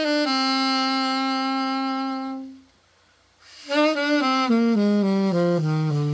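Yamaha YAS-280 alto saxophone being play-tested after a full overhaul: one long held note that stops after about two and a half seconds, a short pause, then a run of notes stepping downward into the low register.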